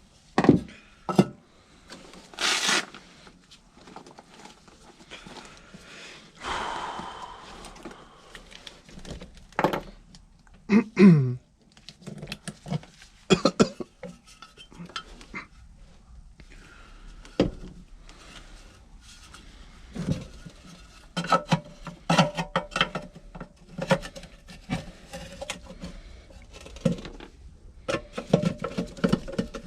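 Irregular metallic clinks, knocks and scrapes of hand tools and furnace parts being handled while an HVAC inducer motor is being swapped. There are a few sharper knocks in the first few seconds and about ten seconds in, and quick runs of rattling clicks in the second half.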